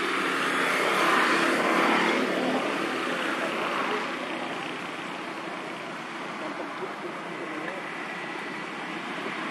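A motor vehicle engine running steadily, a little louder about a second in.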